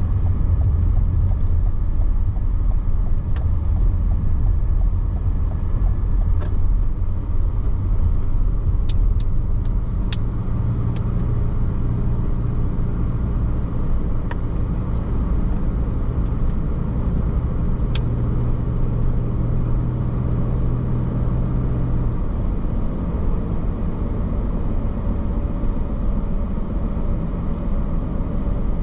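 Car driving along a road: steady low engine and tyre rumble heard from inside the cabin, with a few brief ticks.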